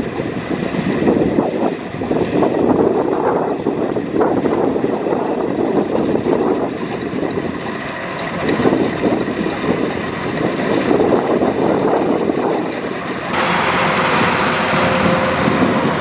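Kubota DC-105X combine harvester running as it cuts and threshes rice: a steady, loud mechanical noise from its diesel engine and threshing machinery. About 13 seconds in the sound changes abruptly, turning brighter with a steady hum.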